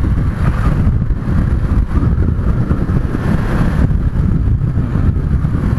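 Wind buffeting a microphone inside a motorcycle helmet at about 60 km/h: a steady, dense low rumble, with the motorcycle and road noise mixed in.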